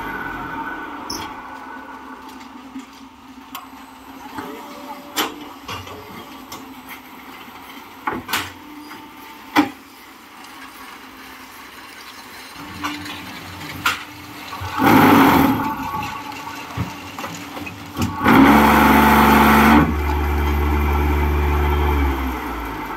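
Hydraulic concrete block making machine working through a cycle: scattered clanks and knocks of the mould and pallet, a loud rush of noise about fifteen seconds in, then a heavy knock and the vibrators shaking the mould loudly for about a second and a half. A low steady hum follows and cuts off near the end.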